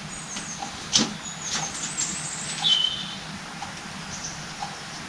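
Small clicks and a sharp knock, about a second in, of hydraulic pump parts being handled and set down during a strip-down, with a brief high squeak near the middle. Under them a faint tick sounds about once a second.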